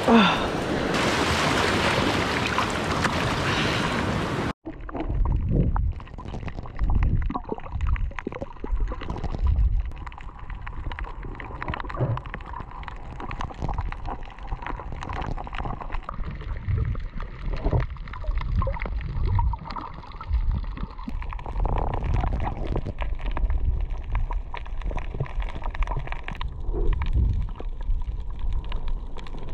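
Surf washing over a rocky reef shore, with wind on the microphone. About four and a half seconds in it cuts abruptly to muffled underwater sound from a camera under the sea: a low rumble of moving water, gurgling, and faint scattered clicks.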